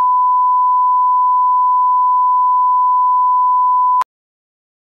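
A 1 kHz line-up test tone, the steady single-pitch beep played with colour bars. It cuts off abruptly with a click about four seconds in.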